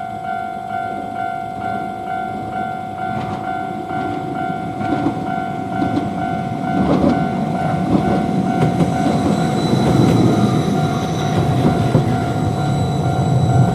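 Japanese railway crossing alarm bell ringing in even, rapid 'kan-kan' strikes, just under two a second, as a Hiroden Miyajima Line streetcar passes over the crossing. Wheel clicks over the rails come a few seconds in, and the streetcar's rumble grows louder from about halfway through.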